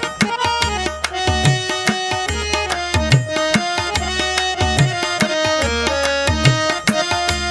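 Background music with a steady beat: held melodic notes over regular low drum strokes that drop in pitch, about one a second.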